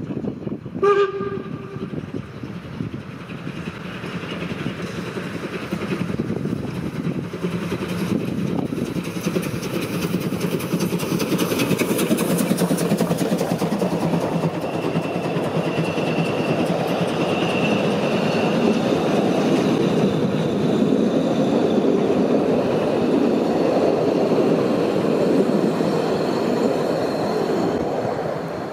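Narrow-gauge Saxon steam tank locomotive of the DR class 99.73–76 giving a short whistle blast about a second in, then working past with its train of coaches rolling by, the noise building and staying loud.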